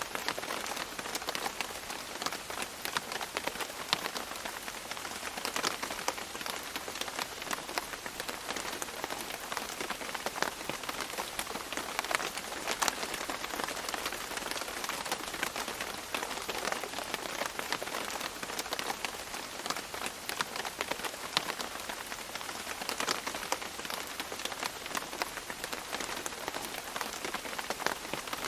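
Steady rain falling and dripping on leaves, a dense patter of many individual drops over a continuous hiss.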